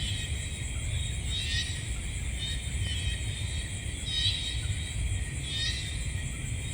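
Night nature ambience. A chirping call repeats about every second and a half over a steady high buzz and a low rumble.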